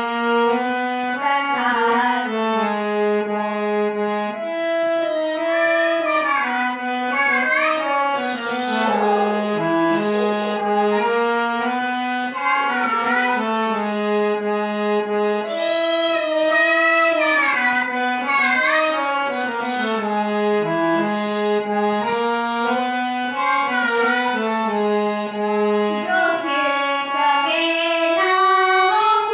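Instrumental music without singing: a sustained reed- or wind-like instrument plays a flowing melody over a held low note, an interlude in a devotional prayer song.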